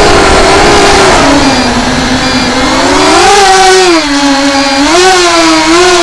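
Four Emax 2205 2300 kV brushless motors spinning 5x4.5 bullnose propellers on an FPV racing quadcopter, whining as heard from the onboard camera. The pitch drops a little over a second in, climbs around three seconds, dips near four seconds and rises again around five seconds, following the throttle, over a steady rush of air noise.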